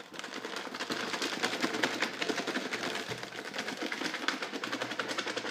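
Fast, continuous clatter and rustle of a plastic salad container and its lid being handled and shaken to mix the salad.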